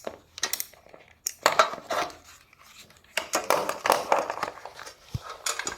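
Irregular clicks, clinks and rattles of small metal tools and parts being handled, in scattered bursts with short pauses between.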